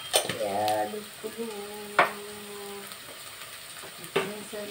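Whole spices, onions and green chillies sizzling in hot oil and ghee in an aluminium pot, with a spoon knocking sharply against the pot three times.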